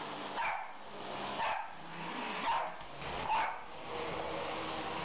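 Toy poodle barking four times, about once a second, over the steady noise of a running vacuum cleaner.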